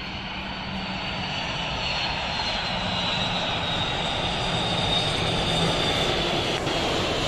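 Jet engines of an Airbus A330 airliner on final approach with its landing gear down, growing steadily louder as it comes in low and close, with a high whine that falls slightly in pitch.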